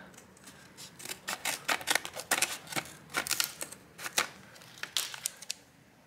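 Scissors cutting through the cardboard and clear plastic blister packaging of an M.2 SSD: a run of sharp, irregular clicks and snips.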